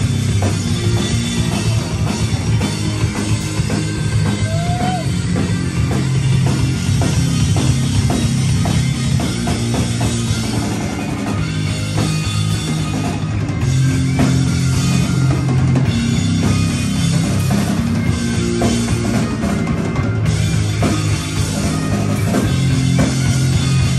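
Live rock band playing loudly: electric guitar, bass guitar and a drum kit with a steady beat.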